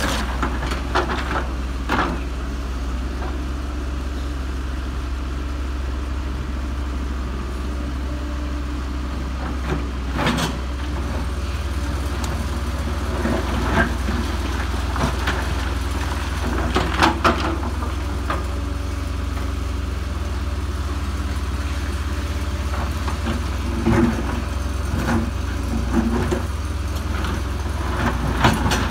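Case tracked excavator's diesel engine running steadily, with occasional sharp knocks and scrapes as the bucket works among the creek-bed stones.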